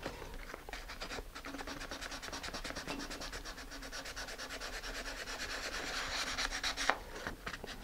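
Sandpaper on a sanding block rubbing back and forth over a filler-coated model rocket fin, in quick, even rasping strokes, several a second. There is one sharp tap near the end.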